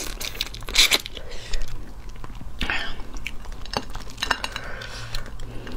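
Close-miked eating of boiled shellfish: shells cracking and being sucked at between bites and chewing, then shell pieces clicking and clattering on the plate as the hands pick through the pile.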